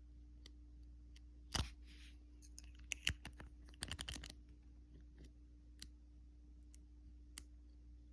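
Small sharp clicks of a padlock's pin stacks snapping back down as the lockpick releases them: one loud click about one and a half seconds in, then a quick cluster of clicks between three and four seconds in, with faint ticks between. The clicks are counted to tell how many pins the lock holds, which comes to about six.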